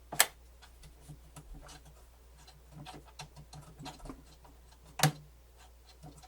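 Pioneer CT-W802R cassette deck mechanism clicking and ticking as it struggles to move its cam. A faint rapid pulsing runs through the middle, with a louder click just after the start and another about five seconds in. The drive belt is so loose that the mechanism lacks the power to lift.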